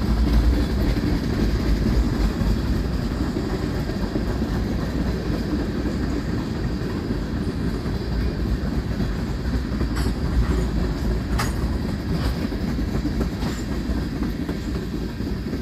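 Tank cars of a freight train rolling past, a steady low rumble of steel wheels on rail, with a few sharp clicks from about ten seconds in.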